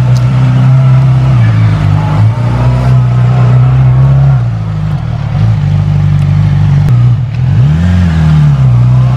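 Yamaha R6 sport bike's inline-four engine running as it pulls away and rides off, its pitch holding steady and stepping between levels, then dipping and swinging up and back down in one rev near the end.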